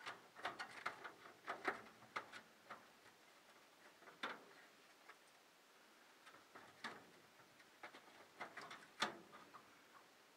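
Scattered light plastic clicks and knocks as a whole-house humidifier's water panel and its frame are fitted back into the unit's housing, with one louder knock about nine seconds in.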